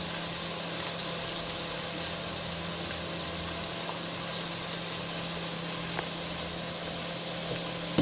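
Steady electric hum with an even whirring hiss, the running cooling fan of a single-burner glass-top cooker under a pot of food. A faint click about six seconds in.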